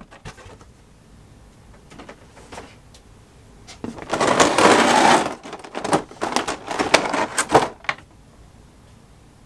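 Clear plastic blister packaging being handled: a burst of crinkling plastic about four seconds in, then a run of sharp plastic clicks and taps.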